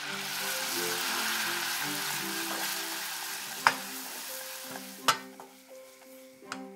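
Butter and flour roux sizzling in a stainless steel saucepan as it is stirred with a wooden spatula. The sizzle fades over the last couple of seconds, and the spatula knocks sharply against the pan three times in the second half. Quiet background music plays underneath.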